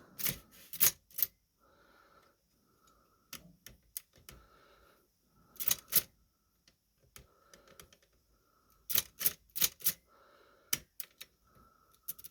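Mechanism of a Chicago typewriter being worked by hand: irregular clusters of sharp metal clacks, with a faint metallic rattle between them.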